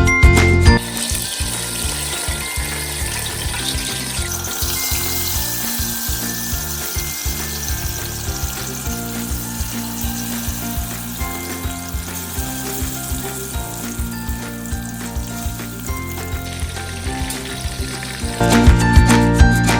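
Food sizzling as it fries in hot oil, a steady hiss, with background music playing more softly underneath. Loud music plays in the first second and returns near the end.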